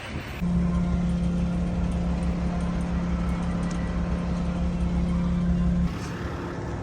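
An engine running at a steady speed with a constant hum, starting about half a second in and cutting off abruptly near six seconds.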